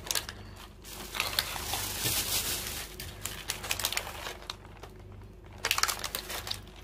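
Clear plastic egg cartons crinkling and crackling as they are handled and turned over.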